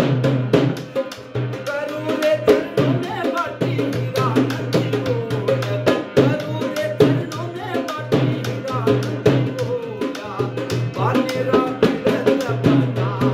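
Live Indian folk music: a hand-pumped harmonium holds sustained reedy notes while a double-headed dhol drum is beaten by hand in a fast steady rhythm, with a man singing a wavering melody over them.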